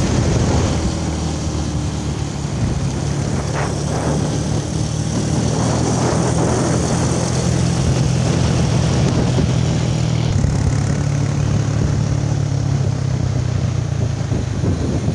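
Motorcycle engine running steadily while riding, with wind rush over the microphone; the engine note shifts slightly about ten seconds in.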